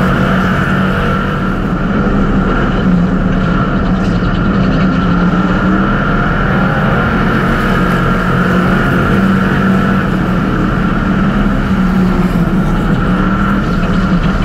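A pack of street stock race cars running together on a dirt oval, their engines making a loud, steady drone.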